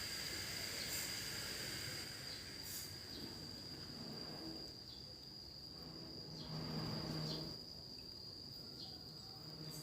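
Cicadas singing: a steady, unbroken high-pitched drone. A low hum swells in underneath about four seconds in, is loudest around seven seconds, and fades soon after.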